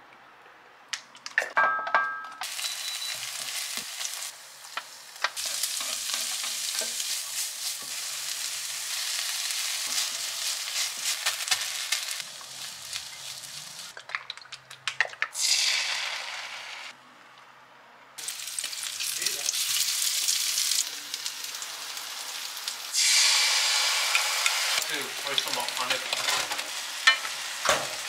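Oil sizzling in a frying pan as chicken nuggets fry, in several stretches that start and stop abruptly. A few clinks near the start come from chopsticks beating eggs in a ceramic bowl, and near the end a spatula stirs the nuggets in the pan.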